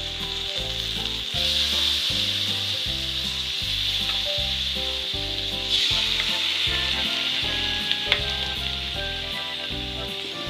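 Marinated chicken pieces sizzling in hot oil in a wok as they are dropped in. The sizzle swells about a second and a half in and again near six seconds, with a couple of sharp clicks about eight seconds in.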